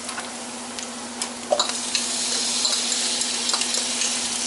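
Diced onions sizzling in butter in a stainless steel skillet, the sizzle growing louder about two seconds in. A few light knocks of a utensil against the pan come before that.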